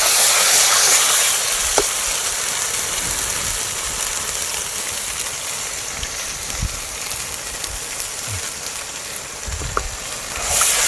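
Thick onion-tomato masala sizzling and bubbling in hot oil in a pan, with tamarind water just poured in. The steady sizzle eases off a little over the seconds. A couple of light knocks sound through it.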